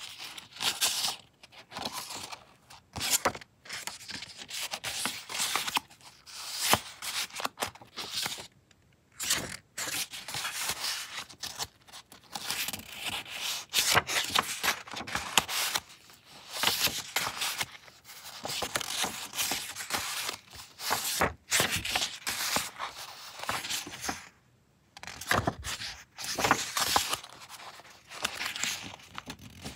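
Sheets of assorted paper and thin card being handled and leafed through a stack: irregular rustling, sliding and flicking of paper, in uneven bursts with short pauses.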